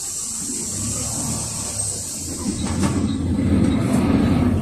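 Cabin noise of a PAZ 4234-05 bus under way, its Cummins ISF3.8 diesel engine running with a low rumble that grows louder. A steady high hiss fades out about halfway through, and there are a couple of faint knocks near the end.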